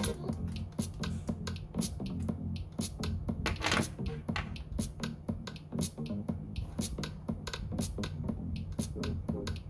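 Music with a steady beat over a continuous bass line, with a short hissing burst about three and a half seconds in.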